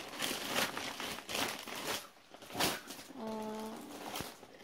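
Plastic snack packaging crinkling and rustling as it is handled, in several bursts with a sharp crinkle about two and a half seconds in.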